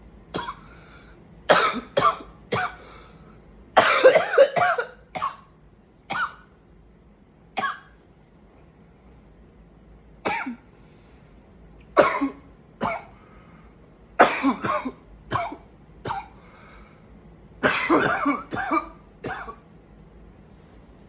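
A man coughing in repeated fits: single coughs and tight clusters of rapid coughs, with pauses between them. The longest fits come about four seconds in and again near the end.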